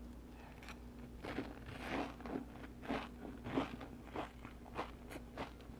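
Close-up crunching and chewing of a crispy deep-fried Vietnamese spring roll (chả giò), a sharp crunch about every half second starting about a second in.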